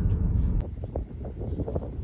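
Wind buffeting the microphone outdoors, an uneven low rumble that starts with a sharp click about half a second in.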